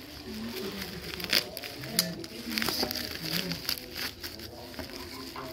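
Plastic courier bag and packing tape crinkling and rustling as they are pulled open by hand, with sharp crackles and clicks now and then.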